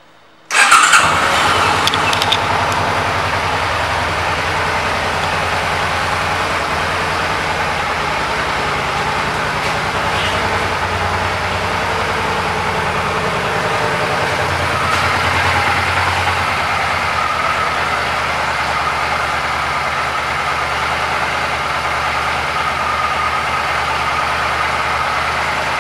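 2013 Suzuki Boulevard C50T's 805 cc V-twin engine idling steadily. The sound comes in abruptly about half a second in, briefly louder at first, then settles into an even idle.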